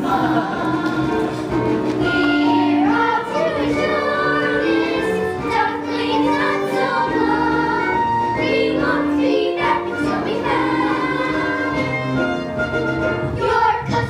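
Children's chorus singing a song together over musical accompaniment, with held notes.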